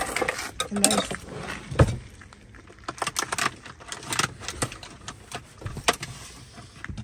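Scattered clinks and clatters of cups, dishes and kitchen items being handled in a drawer, loudest in the first two seconds, followed by sparser light knocks.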